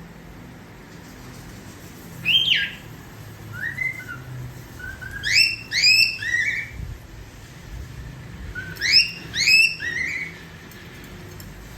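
Cockatiel whistling its one learned phrase: groups of short upward-sweeping whistles, loudest in two runs about five and nine seconds in.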